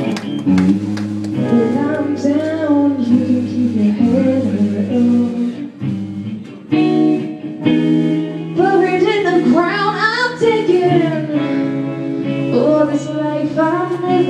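Live band playing: drums and guitar under a singing voice. The music drops back briefly about six seconds in, then comes back in loud.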